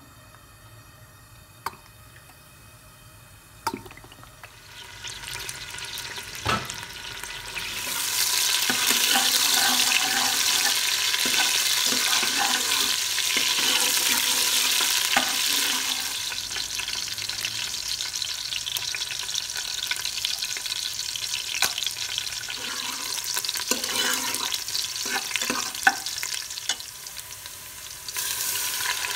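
Sliced onions sizzling in hot oil in an aluminium pressure cooker while a steel ladle stirs them and clinks against the pot now and then. The frying hiss builds over the first several seconds to a steady, loud sizzle. Near the end a liquid is poured in and the sizzling jumps up again.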